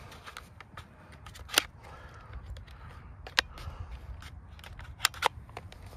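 Sharp plastic clicks and snaps from hands working on the RC buggy with its engine off: one about one and a half seconds in, one past three seconds, and a quick pair near the end, over a steady low rumble.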